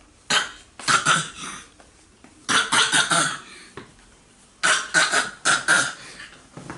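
A young child coughing in quick fits: four bouts of short coughs, each bout of one to four coughs in a row.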